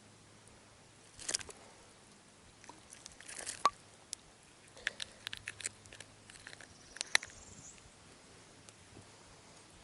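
Scattered light clicks and crunching handling noises, the sharpest about a second in, three and a half seconds in and seven seconds in.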